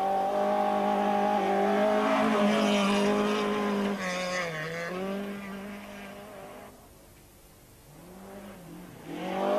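Rally car engine running hard at high revs as the car approaches and passes close by, with a brief dip in pitch about four seconds in, then fading away as it drives off. Near the end a second engine grows louder as another car comes up.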